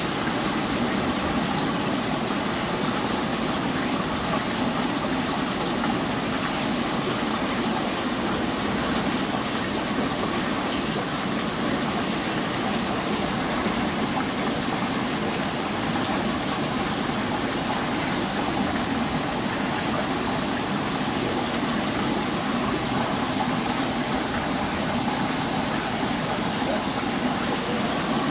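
Steady rushing and bubbling of water from aquarium filtration and aeration, an even, unchanging noise.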